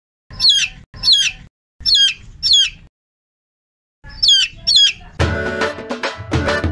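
A young chick peeping: four shrill calls, a pause of complete silence, then two more. Background music with drums comes in about five seconds in.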